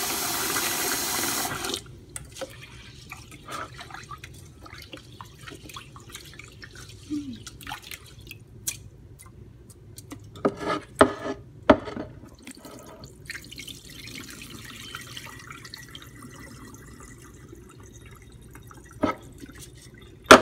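Kitchen tap running into a stainless steel pot of rice being washed, shut off about two seconds in. Then quieter sloshing and splashing of the rinse water as the rice is worked by hand, with a few louder splashes in the middle and the cloudy water tipped out near the end.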